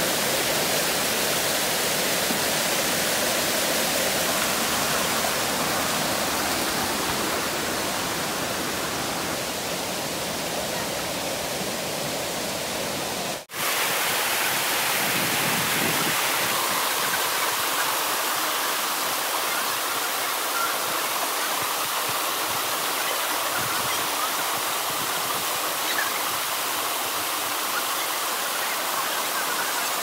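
Steady rush of flowing mountain water, broken by a very brief cut-out about thirteen seconds in.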